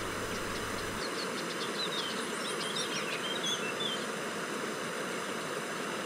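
A steady rush of river ambience, with a few short high bird chirps and a wavering trill about two to four seconds in.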